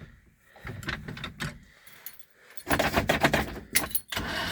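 Keys jangling with scattered clicks as the ignition key of a Moskvich 407 is handled, then a louder patch of rattling and clicking for about a second and a half near the end.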